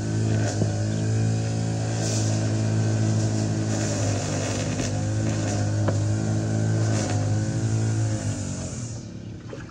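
Motor of a drain-cleaning cable machine spinning its cable in the root-choked sewer line, running steadily with its pitch wavering slightly under load. It runs down and stops near the end.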